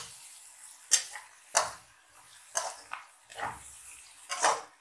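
Slotted metal spatula scraping and knocking against a metal wok while stirring shredded cabbage and chopped green bell pepper. About seven sharp strokes, irregularly spaced roughly half a second to a second apart.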